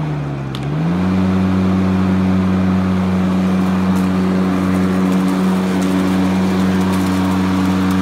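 Home-built corded electric lawn mower running: the electric motor and spinning blade give a steady hum with a whine above it. Its pitch sags and recovers within the first second, then holds steady.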